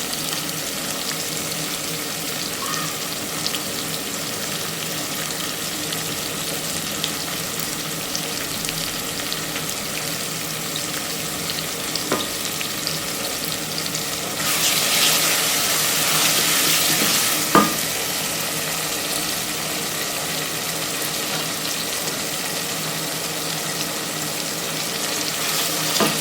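Chicken curry with tomatoes and peppers frying in oil in a cooking pot, a steady sizzle that swells louder for about three seconds about halfway through, with a couple of light knocks.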